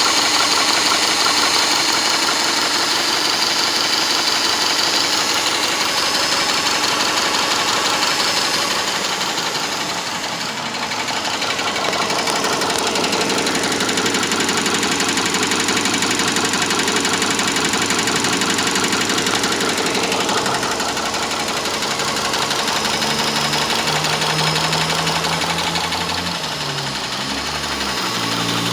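Subaru Legacy 2.5 SOHC flat-four engine running with a fast, continuous ticking, the unexplained noise the owner is asking about. A deeper engine tone comes in during the last third.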